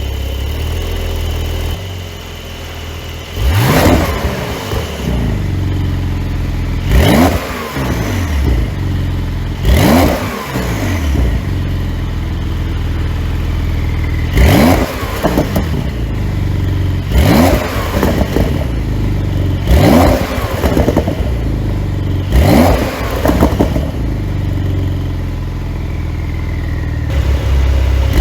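Porsche 911 Carrera GTS twin-turbo flat-six idling and being blipped seven times. Each rev rises sharply and falls back to idle, heard through a tuned exhaust with its flap held fully open.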